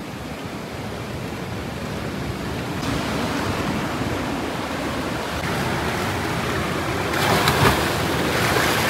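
Sea surf washing over and breaking against rocks, a steady rushing that grows louder, with a stronger splash about seven seconds in.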